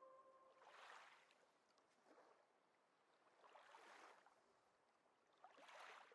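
Near silence with faint surf: four soft swells of rushing sound, each rising and falling away, as waves wash in. The last held note of the music dies away about half a second in.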